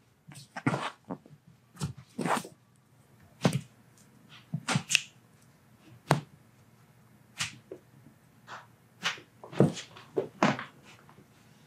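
Foot and toe joints popping under chiropractic manipulation: about a dozen short, sharp cracks at irregular intervals, with soft handling noise between them.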